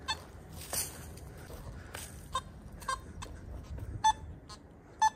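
Nokta Makro Simplex+ metal detector giving a handful of short, separate beeps as it is swung over the ground. Between them are light crunching and rustling steps.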